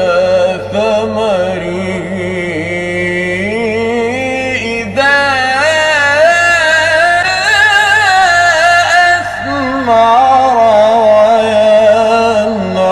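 A man's solo voice reciting the Quran in a slow, melodic chanted style, holding long ornamented notes that wind up and down. About five seconds in, the voice steps up to a higher pitch.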